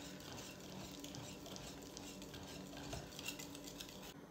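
Small wire whisk stirring thick yogurt and cream with spices in a glass bowl: faint, quick scraping and clicking of the wires against the glass.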